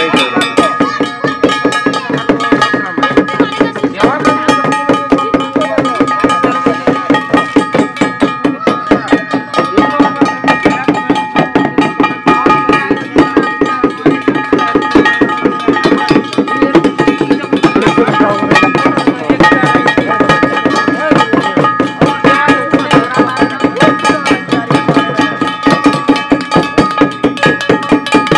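A hand drum beaten in a steady, fast rhythm together with small ringing hand cymbals, as ritual percussion.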